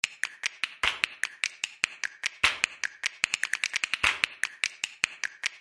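A percussion beat of quick, sharp clicks and snaps, several a second, with a fuller hit about every second and a half.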